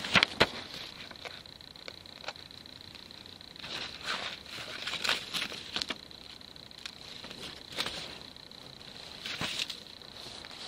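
Footsteps crunching over debris in irregular clusters of sharp crackles, over a steady faint high-pitched whine.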